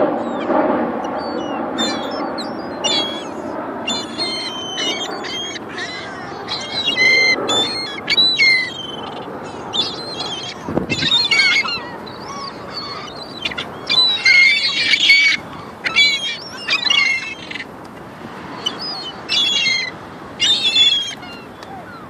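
A flock of gulls calling: many short, high cries, overlapping and repeated, thickest in a burst about two-thirds of the way in.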